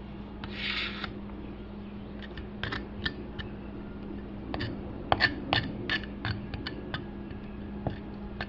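Knife blade scraping along raw pork chops to strip off bone dust: a short rasp about half a second in, then a run of quick scrapes and clicks of the blade on meat and board through the middle.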